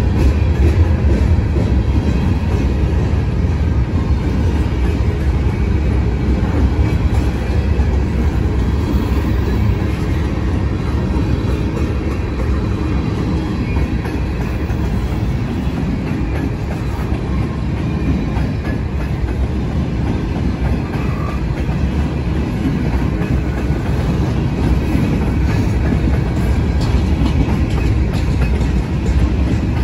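Canadian National freight train rolling past: the cars make a loud, steady rumble that is heaviest in the low end.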